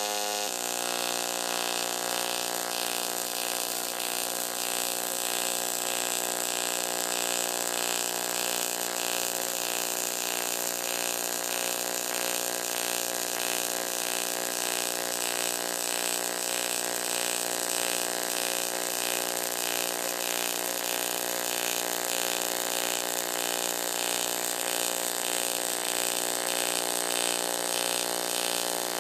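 Panasonic TAWERS AC-MIG robotic welding arc on aluminium at 55 A, buzzing steadily as the torch lays a spiral-weave bead, with a faint regular pulsing through the buzz.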